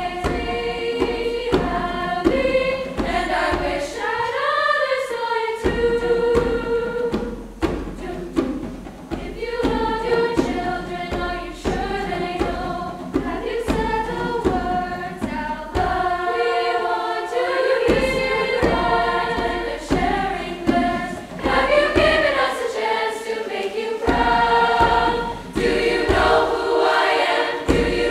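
Treble choir of upper voices singing in harmony, accompanied by a hand drum beating a steady rhythm.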